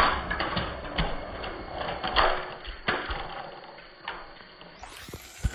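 Plastic battery-powered toy trains clattering: a string of sharp knocks as engines and wagons tip off a raised track and hit the floor, over the faint whir of a toy train motor.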